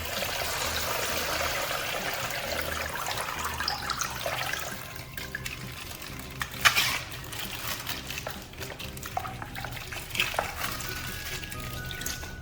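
Water pouring and splashing for the first four or five seconds, then scattered handling clicks with one sharp loud crack about six and a half seconds in.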